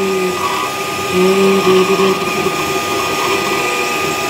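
FDM 3D printer running a print: its stepper motors whine in pitched tones that start, stop and change pitch as the print head moves, over a steady high hum.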